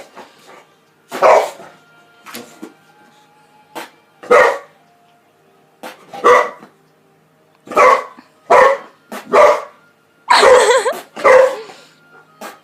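Boxer dog barking in short single barks, about eight loud ones spaced irregularly a second or two apart, with a few fainter ones between.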